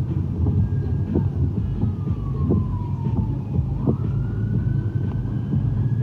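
An emergency vehicle siren wailing slowly: its pitch falls over about three seconds, then rises again, over the steady rumble of road traffic.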